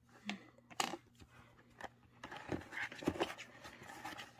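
Handling noises: soft rustling of packaging with a few scattered small clicks and taps as cosmetic products are put down on a wooden surface.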